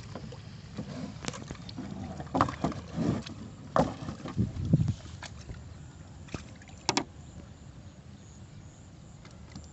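Scattered knocks and clunks of a rusty steel-rod fish trap being handled in a small boat, its frame bumping against the boat, with one sharp knock about seven seconds in.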